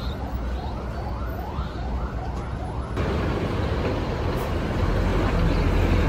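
A bus's siren-like horn sounds a rising whoop about twice a second, then stops about three seconds in. The bus's engine noise grows louder after that, toward the end.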